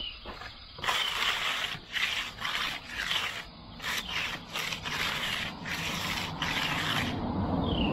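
A hand concrete-finishing tool scraping back and forth across the wet top of a freshly poured concrete wall, in about ten short strokes that start about a second in and stop near the end. This is the floating and edging of the top, done once the concrete has stiffened enough to bring the cream up. A bird's short falling chirp repeats between the strokes.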